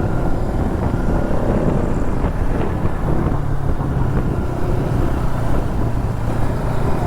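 Bajaj Pulsar NS200 motorcycle engine running steadily while cruising, with wind rushing over the helmet microphone.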